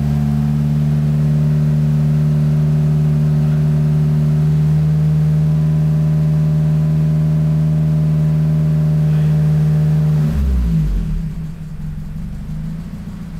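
Turbocharged Honda B16 four-cylinder engine of a Civic VTi held at a steady engine speed. About ten seconds in the throttle closes and it falls back to a lower, uneven idle.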